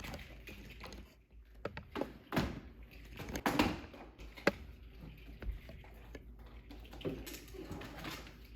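Plastic dinosaur toys being handled: a scatter of short clicks and knocks with rustling, the loudest knocks between about two and four and a half seconds in.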